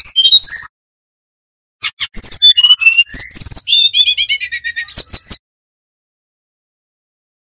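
Sikatan rimba dada coklat (brown-chested jungle flycatcher) singing a fast, varied song of high whistles and chirps in two phrases. The longer phrase ends in a run of whistled notes stepping down in pitch, and the song stops about two seconds before the end.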